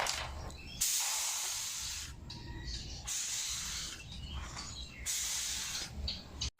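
Compressed air hissing out in three bursts of about a second each.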